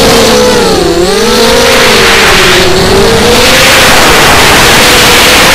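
ZMR250 racing quadcopter's brushless motors and propellers whining loudly, with a rush of air, heard from the onboard camera. The pitch dips about a second in, dips again more gently around three seconds, then rises back as the throttle changes.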